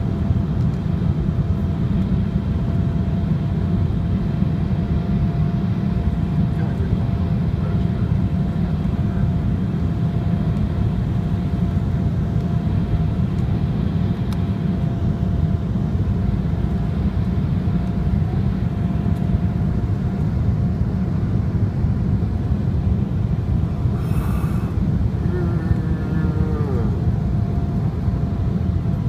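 Steady cabin noise of an Embraer 190 on final approach: a low rumble of airflow and its wing-mounted GE CF34 turbofan engines, with a faint steady tone throughout. Near the end, a brief burst of noise and a short sliding pitched sound rise above it.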